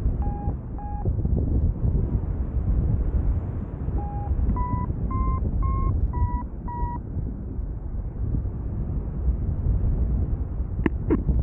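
Paragliding variometer beeping: two short beeps, then a run of about seven short beeps a few seconds in whose pitch steps up and then eases back slightly, signalling that the glider is climbing. Wind rushes steadily over the microphone underneath, and there are a couple of sharp clicks near the end.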